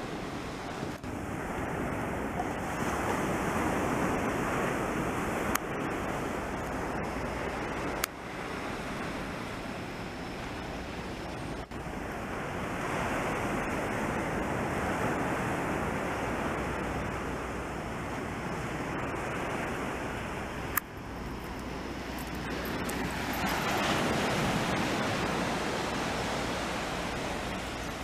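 Surf breaking and washing up a beach: a steady rush that swells and eases several times as the waves come in. A few brief sharp clicks cut through it.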